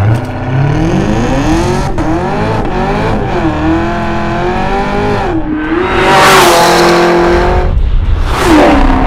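Supercharged V8 of a Hennessey Exorcist Camaro ZL1 accelerating hard. The engine note climbs, drops back at several upshifts of the 10-speed automatic, and is loudest in the second half.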